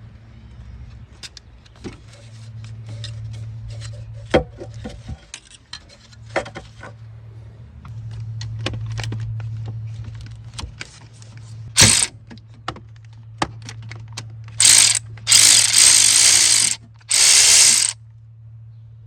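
Hand tools clicking and clinking on metal, with a louder single clack partway through. Then a power tool runs in three short bursts near the end.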